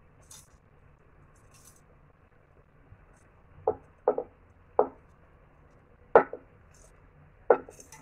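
A glass plate knocking against the rim of a metal pot as shredded chicken is scraped off it into the pot. There are about five sharp clinks in the second half, the loudest a little after the middle.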